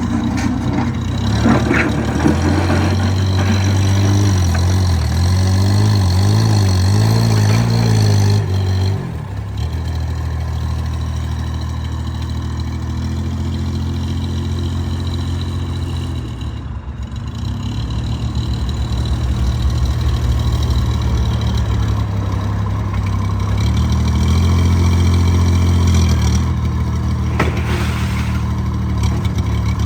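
Mini backhoe loader's engine running, working harder and louder with wavering pitch from about four to nine seconds in, settling back to a steadier, lower note, then picking up again from about eighteen to twenty-six seconds in. A short knock is heard near the start and another near the end.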